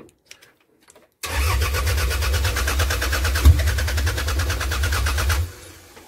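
1998 Toyota Camry engine cranking on its starter for about four seconds, starting about a second in, evenly pulsing and not catching. The engine computer has been left unplugged, so it cannot fire up.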